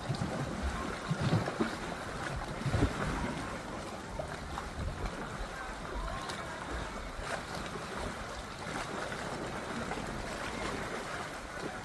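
Wind and water noise around a small boat on open water: a steady low rumble, with a few heavier low thumps in the first three seconds.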